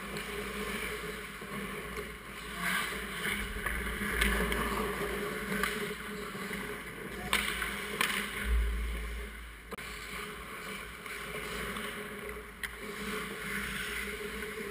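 Ice hockey skates scraping and carving the ice around the goal, with a few sharp knocks of sticks and puck. A dull low thump comes about eight seconds in as players crowd the crease.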